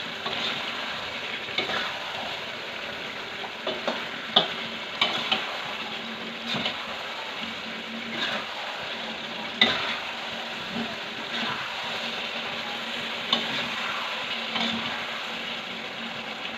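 Sweet potato chunks sizzling steadily in oil and sugar in a pan while a spatula stirs them, with irregular sharp clinks of the spatula against the pan.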